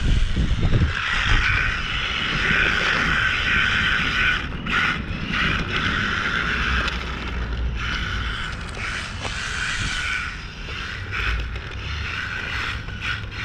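Brushless RC road car running, a steady gritty mechanical noise from its geared drivetrain and tyres that breaks off briefly a few times as the throttle is let off.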